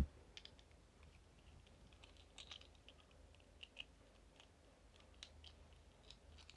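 Faint, irregular small clicks and ticks of a plastic plug top and its wires being handled while the wires are connected to its terminals.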